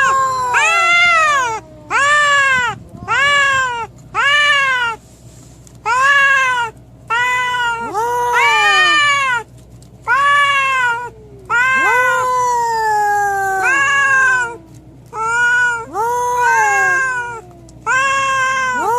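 A cat meowing loudly over and over, about one call a second, each call rising and then falling in pitch; a few calls overlap near the middle.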